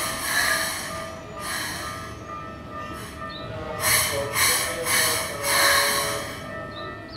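Keikyu 600 series electric train standing at the platform just after coming to a stop. Its equipment gives a steady hum, broken by a string of short hisses, the loudest starting about four seconds in.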